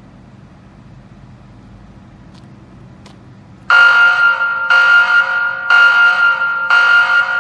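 Sky Speaker-I drone megaphone playing a loaded spaceship sound effect: a loud electronic tone that cuts in suddenly about three and a half seconds in and pulses about once a second, four times, like an alarm.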